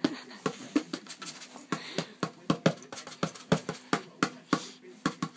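Bongo drums struck with a dog's paws: quick, uneven slaps on the drumheads, about three or four a second.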